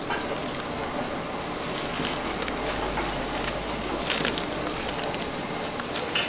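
A paper wrapper crinkling a few times as it is folded around a souvlaki pita, over a steady hiss.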